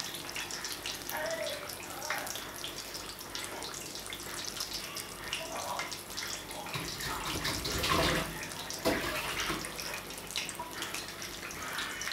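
Fish frying in hot oil in a pan, a steady crackling sizzle, with a louder bump about eight seconds in.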